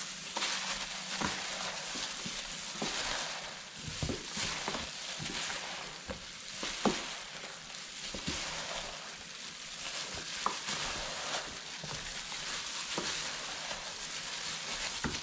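Gloved hands mixing raw chicken wings in a wet marinade of egg, batter flour and spices: a steady rustling, stirring noise with occasional sharper clicks.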